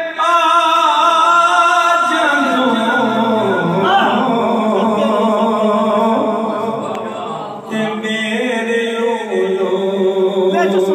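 A man's unaccompanied sung recitation of a mourning lament, long drawn-out melodic phrases with no instruments, with a short break about three-quarters of the way through.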